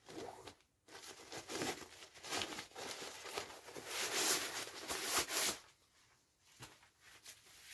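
Crinkling, rustling stuff sack and sleeping-pad fabric as a Klymit Insulated Static V Recon pad is pulled out of its sack, loudest a little past the middle and dying down near the end.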